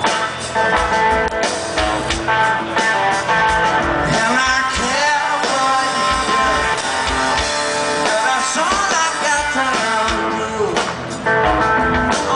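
Blues-rock band playing live at full volume: distorted electric guitar riffing over drums, with sung vocals in the middle stretch.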